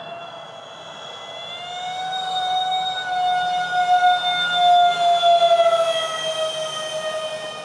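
Electric ducted-fan whine of a Freewing Su-35 model jet in flight: a steady high whine that rises in pitch and grows louder about two seconds in, flutters at its loudest in the middle, then falls in pitch and fades toward the end.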